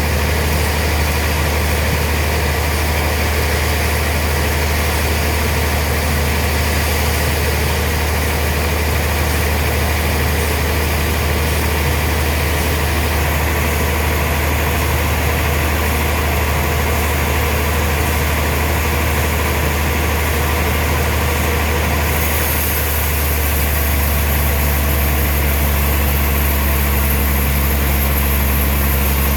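Heavy sawmill machinery running steadily with a deep engine-like hum. About three quarters of the way through the sound shifts, with the hum and a high hiss both growing stronger.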